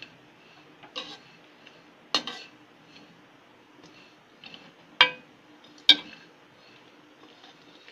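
A perforated steel spoon clinks and scrapes against a steel pan while stirring desiccated coconut as it dry-roasts. There are four sharp clinks, about one, two, five and six seconds in, with fainter scrapes between them.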